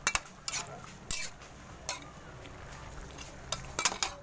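A utensil stirring braised chicken, potatoes and pineapple in a metal cooking pot, clinking and scraping against the pot in irregular strokes, several in the first second and a quick cluster near the end.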